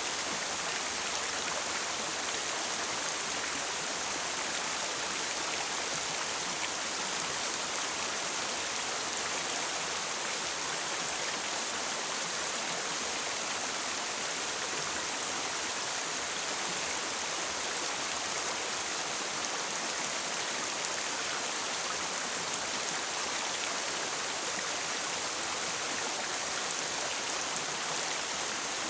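Jungle river water rushing, a steady, even wash with no breaks.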